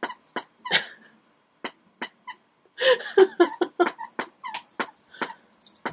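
A dog making a quick run of short yips about three seconds in, among scattered sharp clicks.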